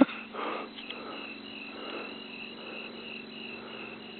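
Crickets chirping in a steady rhythm, about three high chirps a second, over a faint low hum.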